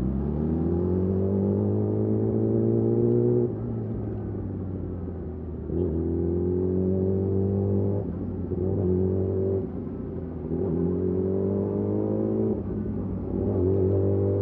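Yamaha YZF-R6's inline-four engine through a de-catted Akrapovič slip-on exhaust, pulling up through the revs five times, its pitch climbing on each pull, with short drops in level between pulls.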